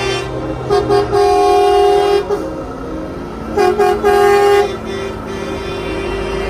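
Semi truck air horn blowing two short toots and a long blast, then the same short-short-long pattern again about three seconds later, over the low running of the approaching truck.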